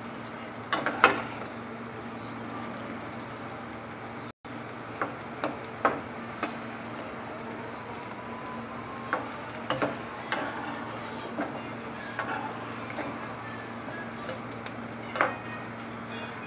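Bitter gourd pieces and slit green chillies sizzling as they fry in hot oil in an aluminium karahi, with a slotted metal spatula scraping and clicking against the pan as they are stirred.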